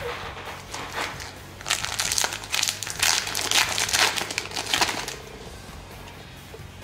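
Foil trading-card booster pack crinkling in the hands as it is opened. The crinkling comes in a loud crackly stretch from about two to five seconds in, with lighter handling noise before and after.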